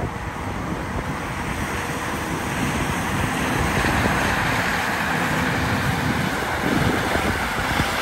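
Heavy farm machinery running steadily: a dense engine rumble and hiss that grows a little louder about halfway through.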